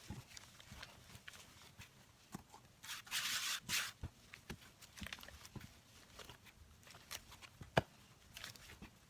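Flour dough being kneaded by hand on a board: soft sticky pressing and peeling sounds with scattered light taps, and a brief scraping hiss about three seconds in.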